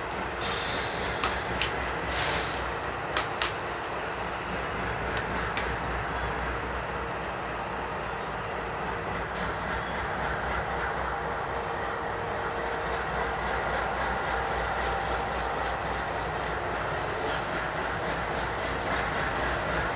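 CSX diesel freight locomotive and its loaded grain hopper cars rolling slowly toward the listener around a curve: a steady running rumble with steel wheels clicking over the rails, and a few sharp clicks in the first few seconds.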